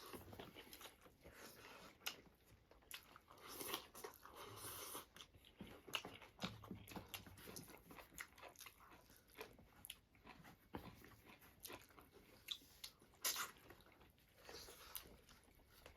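Faint chewing and crunching of food by mouth, with irregular small clicks and crackles.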